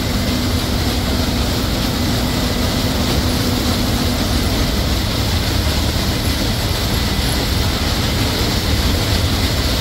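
John Deere CH570 sugarcane harvester cutting cane and loading it into a tractor-drawn trailer running alongside: a loud, steady drone of engines and machinery with a deep rumble. A faint steady hum in it fades out about halfway through.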